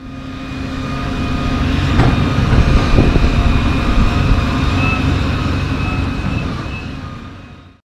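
The diesel engine of a John Deere 350D LC excavator is running with a low rumble and a steady high whine, with a couple of knocks about two and three seconds in. The sound fades in at the start and fades out near the end.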